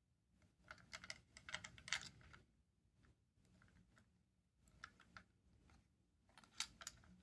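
Faint plastic clicks and taps from a Plarail toy train car being handled and turned over in the hands, in several short clusters.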